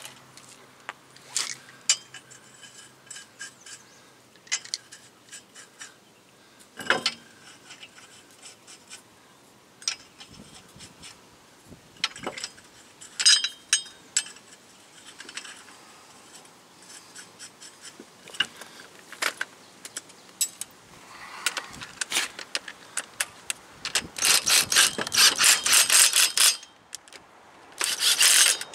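Steel lug nuts clinking as they are set on the wheel studs and threaded by hand. Then a cordless impact wrench runs the nuts on in rapid hammering bursts, twice near the end, the loudest sound here.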